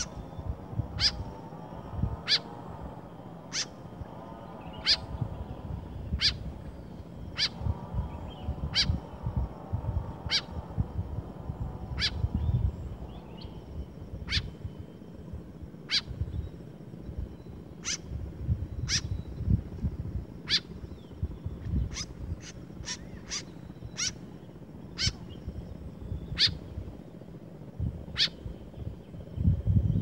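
White-breasted woodswallows at the nest giving short, sharp, high calls about once a second, coming in a quicker run for a few seconds past the middle, over an irregular low rumble.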